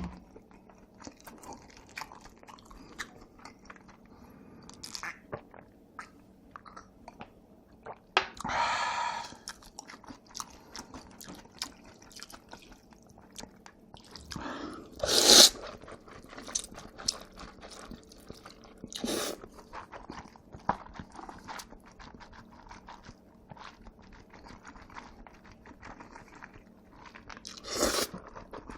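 Close-miked chewing and wet mouth sounds of a person eating jjajangmyeon and jjamppong noodles: many small clicks, broken by four louder short bursts spread through.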